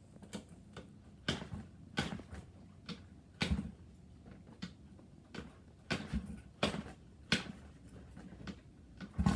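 A series of irregular knocks and clunks, some close together and some a second or more apart, with no engine running.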